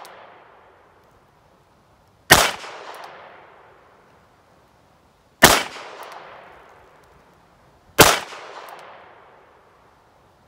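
Three shots from an aluminum-framed Colt Cobra revolver in .32 New Police (.32 S&W Long), each followed by an echo fading over about two seconds. The shots come about two and a half to three seconds apart.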